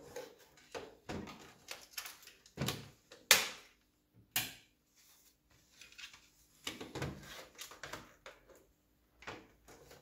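Plastic laptop case being handled and turned over: irregular knocks, clicks and short scrapes, the loudest a sharp scrape about three seconds in.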